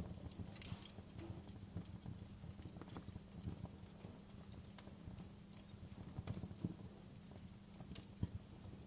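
Wood fire crackling in a fireplace: irregular pops and snaps over a steady low rumble.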